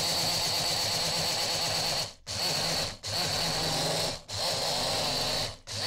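Braun stick blender driving its chopper attachment, grinding coarse citric acid crystals into fine powder. The motor runs in pulses of one to two seconds with short breaks between them, under a steady high whine.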